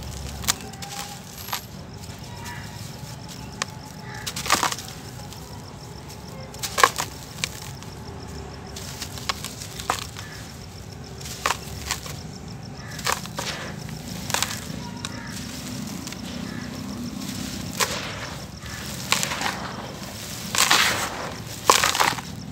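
Hands crushing dry, dusty dirt clods: irregular gritty crunches and cracks as the lumps break, with soft crumbling as loose dirt sifts through the fingers. The crunching comes in a quick cluster near the end.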